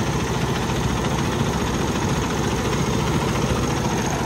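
Cummins X15 diesel truck engine idling steadily, heard close up in the open engine bay.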